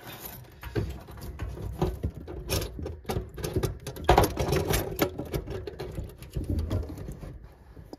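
Scraping, rustling and irregular clicks as braided stainless flexible tap hoses are handled and pushed up through the tap hole under a kitchen sink, knocking against the sink and pipework. It quietens near the end.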